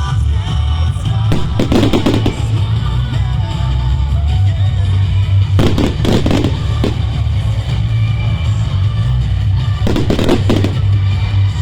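Music playing throughout a firework display, with three clusters of firework bangs and crackles, about 2, 6 and 10 seconds in.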